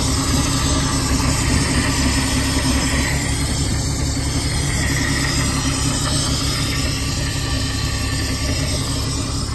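4.3-litre MerCruiser V6 sterndrive engine idling steadily, heard with the engine hatch open.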